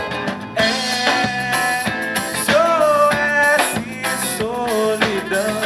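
Pop-rock song with a male voice singing the chorus over drums and guitar.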